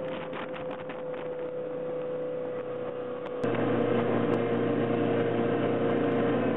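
Motorboat engine running steadily at speed, a constant-pitched drone with water rushing. About halfway through the sound cuts abruptly to a louder, fuller engine drone.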